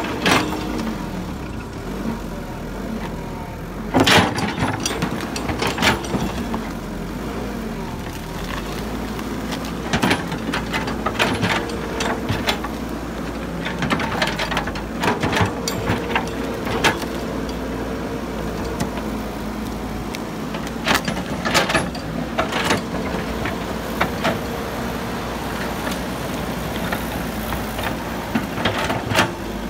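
Caterpillar tracked excavator's diesel engine running steadily under work, with intermittent sharp metallic clanks and knocks as the bucket and arm work through soil, stumps and brush.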